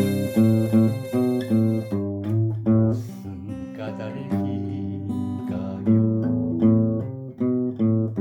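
Instrumental intro of a Korean pop ballad: acoustic guitar playing a plucked and strummed accompaniment, with a bass line under it.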